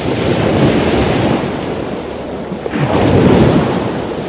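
A banded penguin braying: loud, rough calls in two long surges, the second beginning about three seconds in. This is the call each penguin uses to find its mate and chicks.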